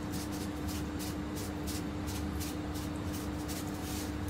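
Spiced water heating in a steel stockpot on a gas stove, coming up to the boil: a steady hiss with faint, irregular ticking of bubbles over a steady low hum.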